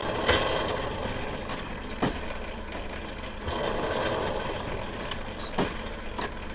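Clay brick-making machine running with a steady engine drone, and a sharp metallic clank three times. Twice a louder rush of noise swells up and fades away.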